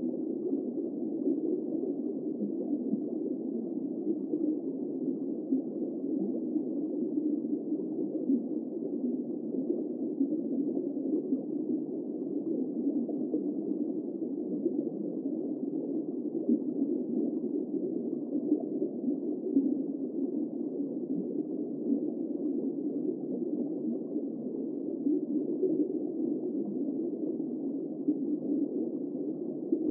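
Underwater ambience: a steady, muffled wash of water noise with no high end and no distinct events.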